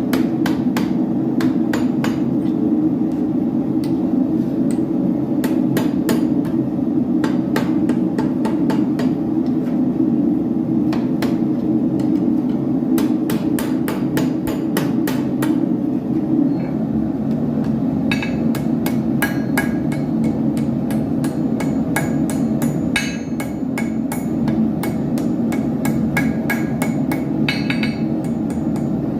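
Hand hammer repeatedly striking hot iron on an anvil while forging an arrowhead, about two to three blows a second over a steady low rushing noise. From about two-thirds of the way in, many blows ring with a bright metallic tone.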